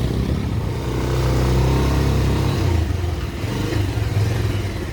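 A motor vehicle's engine running close by in a steady drone that swells a little and then holds, ending abruptly near the end.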